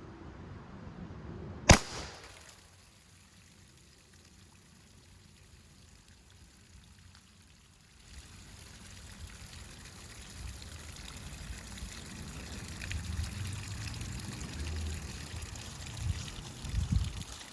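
A single sharp shot from an AEA Challenger .50-calibre big-bore PCP air rifle about two seconds in, firing a 400-grain solid into water jugs. Later, water trickling out of the punctured jugs, with a few low thumps near the end.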